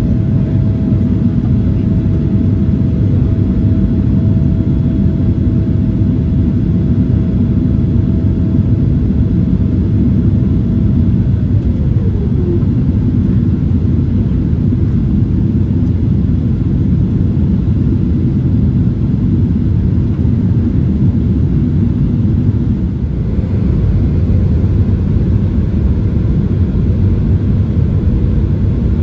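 Cabin noise of a Boeing 777-300ER on descent: a steady low rumble of GE90 engines and airflow. A thin whine slides down in pitch about twelve seconds in.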